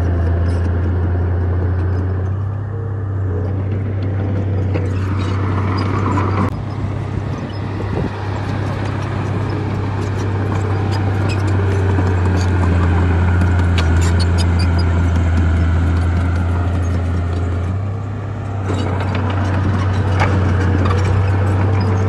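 Heavy diesel earthmoving machinery working: a steady, loud low engine drone with frequent metallic clanks and rattles, the engine note changing abruptly a few times.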